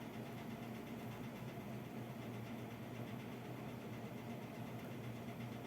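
A steady low hum with a second, fainter tone above it, over a light hiss.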